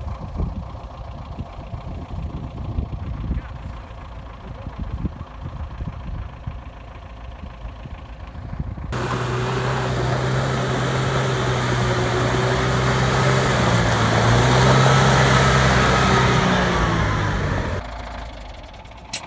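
A vehicle engine running at a distance. About nine seconds in it gives way suddenly to a UAZ-469 off-roader driving hard across snowy ground close by: a loud, steady engine note under a strong rushing hiss of tyres and thrown snow and slush. The engine note rises briefly before the sound cuts off near the end.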